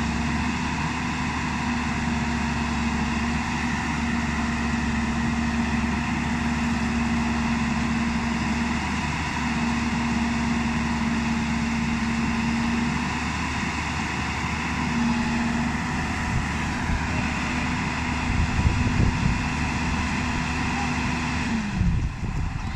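JCB 205 tracked excavator's diesel engine running steadily under load, with a steady whine, as the machine crawls up onto a flatbed truck. A few low knocks come about three quarters through. Near the end the whine falls in pitch and the engine drops back.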